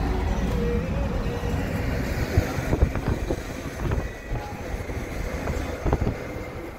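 Car driving, with steady road and engine rumble heard inside the cabin. From about two seconds in, irregular bumps and gusts of wind hit the microphone.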